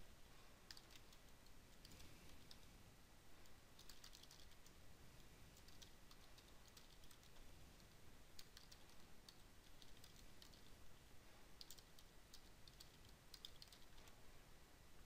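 Faint typing on a computer keyboard, keys clicking in short bursts with pauses between them.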